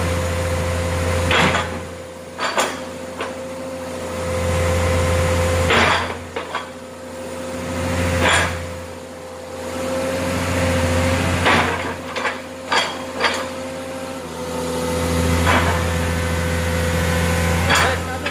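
Komatsu excavator's diesel engine running with a steady whine, swelling under load several times as the hydraulics open, close and rotate a log grapple. Sharp metallic clanks from the grapple and its mount break in about nine times.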